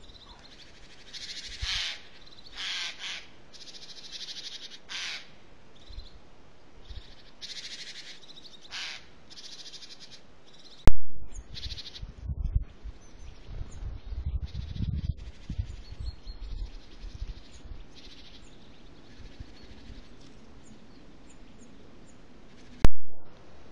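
Several short, harsh bird calls over the first nine seconds. Then comes a stretch of low rumbling and rustling noise. Two loud sharp clicks, about eleven seconds in and near the end, mark joins between the trail camera's recordings.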